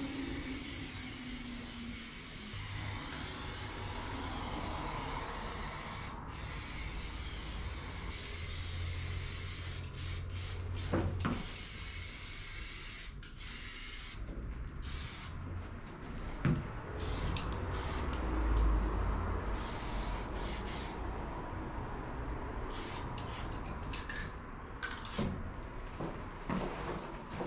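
Aerosol spray paint can hissing as paint goes onto a wall: one long continuous spray for about the first ten seconds, then many short bursts on and off, over a low rumble.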